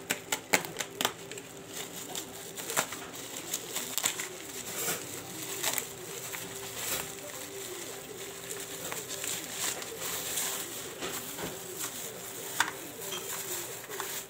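Plastic packaging crinkling and crackling as a taped black plastic bag and bubble wrap are torn open and pulled off by hand, with many sharp irregular crackles.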